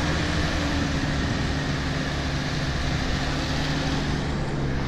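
Daihatsu Feroza 4x4 engine idling steadily, an even low hum.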